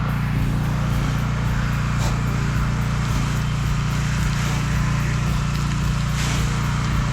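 Gas-engine pressure washer running steadily under load, a constant low drone, with the hiss of the spray gun applying soft-wash mix and brief surges in the hiss about two seconds in and near the end.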